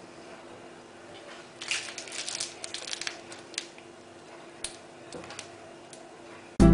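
Pastry cream being squeezed out of a plastic piping bag, the bag crinkling and the cream squelching in a run of crackles for about two seconds, then a few single clicks.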